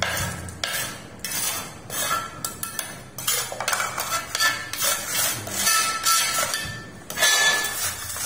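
Steel trowel and scraper scraping and clinking across ceramic floor tiles in quick, uneven strokes, spreading cement grout over the joint of a hollow tile being repaired.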